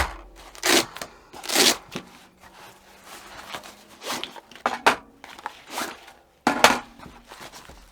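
Handling noise from rifle magazines in a nylon placard pouch: a series of irregular rustles, scrapes and knocks, about half a dozen over several seconds.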